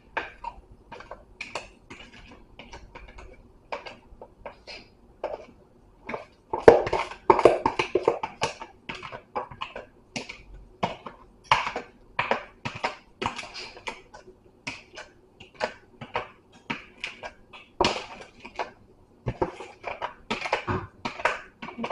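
A spoon or spatula scraping and knocking against a mixing bowl as cornbread batter is scraped out into a pan: a string of short, irregular scrapes and clinks that get louder and busier about six seconds in.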